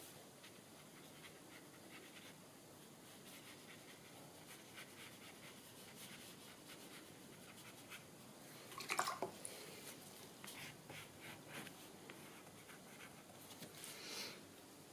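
Faint, scratchy dabbing of a paintbrush on watercolour paper as ink is laid in. A brief louder sound that drops in pitch comes about nine seconds in, and a soft hiss near the end.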